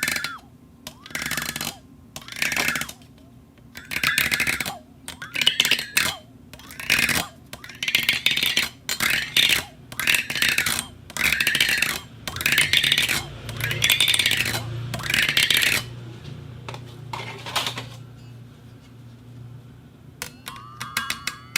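A cup rubbed by friction against a rotating table's plate, in a run of short scraping, ringing strokes about a second each, some with gliding squeaky tones, easing off near the end. A low hum sits under the second half.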